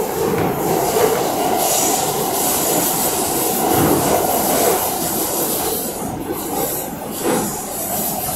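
Subway train running at speed through a tunnel, heard from inside the car: a steady rumble and rush of steel wheels on rail, with wheel squeal and a couple of sharp clacks near the end.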